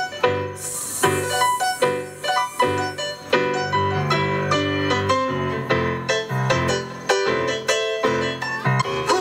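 Digital stage piano played live through a PA: an instrumental passage of rhythmic, struck chords with no singing.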